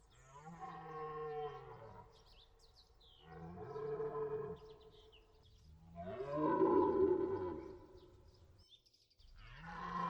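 Red deer stag roaring in the rut: three drawn-out calls of about two seconds each, each falling away in pitch, with a fourth starting near the end.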